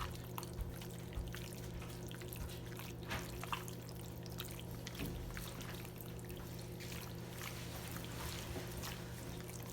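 Boneless chicken pieces being mixed in a wet marinade of lemon juice and spices: faint, scattered wet squishing and soft clicks over a steady low hum.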